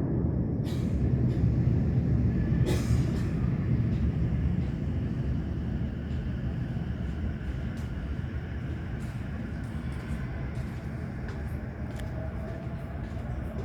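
Low rumble of the fireworks finale slowly dying away after the last shell bursts, with scattered faint crackles and pops.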